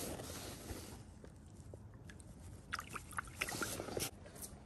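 Light splash and sloshing of creek water as a small brown trout is let go from the hand, followed by a scatter of soft clicks and rustles of handling in the second half.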